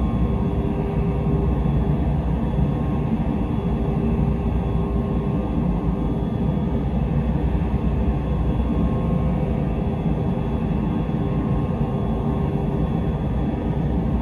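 Steady low rumbling ambience drone with a few faint humming tones above it and no distinct events.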